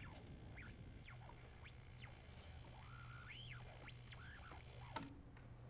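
Near silence: a faint steady low hum with scattered faint, high squeaky chirps, and a single click about five seconds in.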